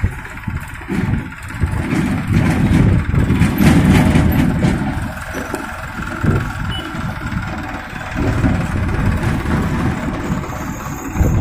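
Diesel engine of a Farmtrac 45 tractor running as it tows a loaded trolley past close by, over a low, uneven rumble of road traffic. It is loudest a few seconds in.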